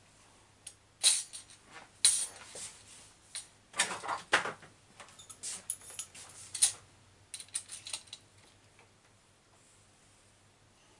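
Small metal parts and a hex driver clicking and clinking against each other as an RC monster truck's suspension parts are fitted by hand: irregular sharp clicks, a few louder ones, stopping about eight seconds in.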